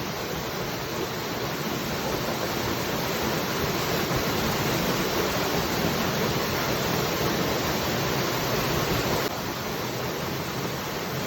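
Waterfall: a steady rush of falling water, dropping slightly in level all at once near the end.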